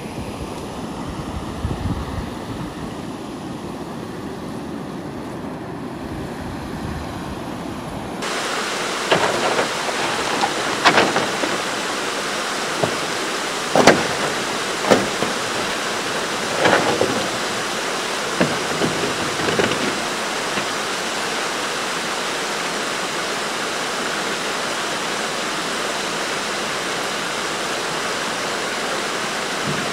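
Steady rush of river water, stepping up suddenly to a brighter, louder rush about eight seconds in. Over it come scattered short knocks and scrapes as a wooden canoe is shoved over the stony shore into the water.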